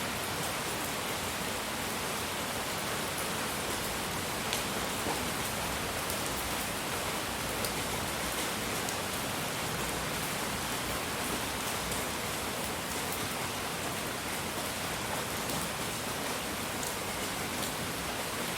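Steady, even hiss of relaxation noise across all pitches, with a few faint ticks scattered through it.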